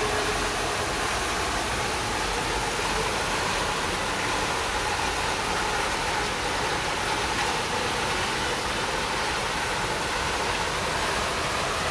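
Steady rushing of a large garden fountain and its cascades splashing into a pond.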